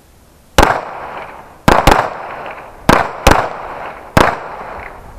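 Six 9mm pistol shots in about three and a half seconds, some in close pairs, each followed by a short echo: two shooters firing three rounds each one-handed in a timed qualification string.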